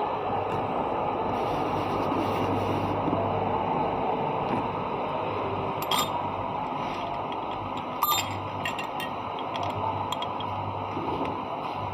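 Steady mechanical hum and noise with a few sharp metallic clinks, about six seconds in and twice just after eight seconds, as of tools or parts knocking against metal.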